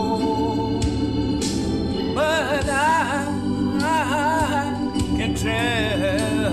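Gospel music: held organ chords with a singer's voice, wide vibrato on the sung phrases, which pick up again about two seconds in after a held note at the start.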